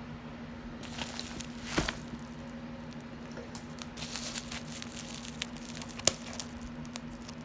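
Faint rustling and a few light taps as a shipping package is handled and opened, over a steady low hum.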